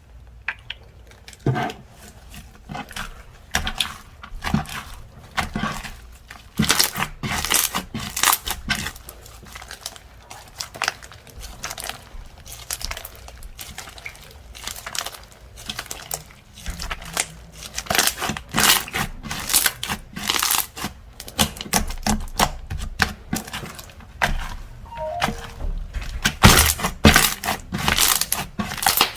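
Slime being squished, poked and stretched by hand, giving dense, irregular clicks and crackles in clusters.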